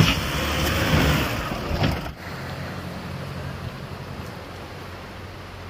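Off-road 4x4's engine working under load with loud rushing noise, a sharp knock right at the start. About two seconds in the noise drops away, leaving a steady low engine hum.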